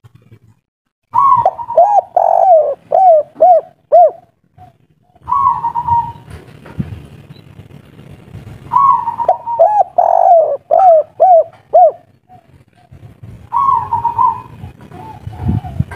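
Spotted dove cooing in repeated phrases. Each phrase opens on a higher note, then runs into a quick series of about five short, lower coos. Two full phrases come, each followed by a shorter call that breaks off after the opening note.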